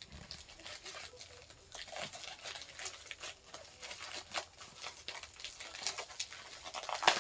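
Plastic packaging of jigging hooks crinkling and rustling as it is handled and pulled open by hand: a run of small crackles, with one sharper, louder crackle near the end.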